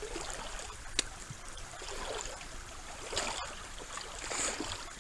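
Shallow creek water trickling and sloshing, with a few louder swishes of moving water and a single sharp click about a second in.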